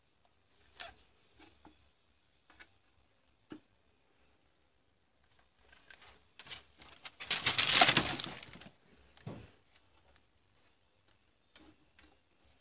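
Hands handling wires and a plastic battery case: scattered small clicks and taps, with one louder rustling scrape lasting about a second and a half a little past the middle.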